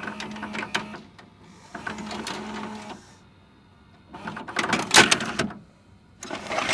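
VHS video-cassette recorder's tape mechanism running: a motor whirs in two short stretches, then two loud bursts of clattering clunks follow, as a tape is loaded or ejected.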